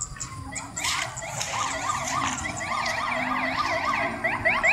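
Police siren in a fast yelp, its pitch sweeping up and down about three times a second, starting about a second in.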